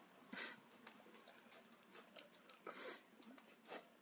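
Golden retriever licking a nearly empty plate clean: a few brief, faint licks with small clicks between, the clearest about half a second in and near the end.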